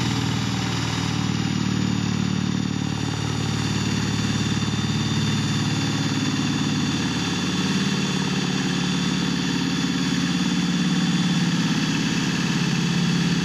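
A cordless drill runs steadily in reverse, with a larger bit boring a hole through a boat's fiberglass hull.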